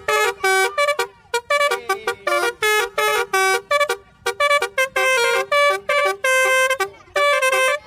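Telolet basuri horn playing a quick tune of short, pitched horn notes, with a few longer held notes.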